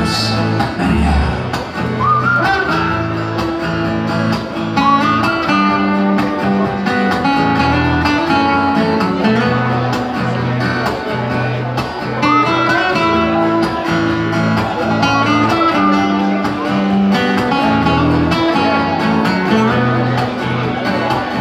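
Two acoustic guitars playing an instrumental passage of a song live through a PA, strummed chords under a picked lead melody with recurring rising phrases.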